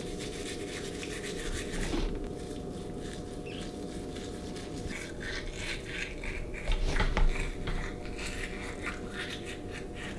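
A child scrubbing her teeth with a manual toothbrush: wet bristle strokes against the teeth, which come through as a quick run of distinct strokes in the second half.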